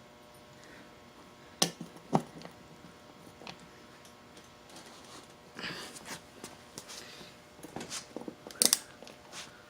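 A few separate sharp metallic clinks and knocks of a socket wrench with an extension and loose lug nuts, as the wheel nuts are worked off an ATV wheel. The loudest come in a pair near the end.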